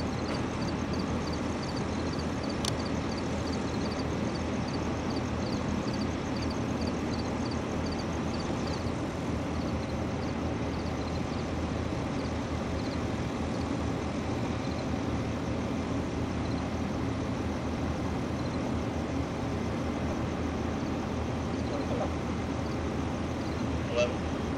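Emergency vehicle engine idling with a steady low rumble. For the first several seconds a faint high chirp repeats about two to three times a second, and there is a short sharp knock near the end.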